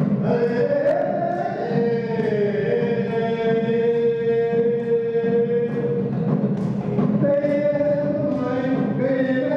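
Men singing a traditional Khasi song in long held notes, one voice on a microphone with others joining, accompanied by a hand drum.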